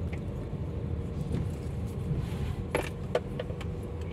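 Steady low engine and road rumble inside the cabin of a Daihatsu Terios, with a few light clicks and rattles about three seconds in.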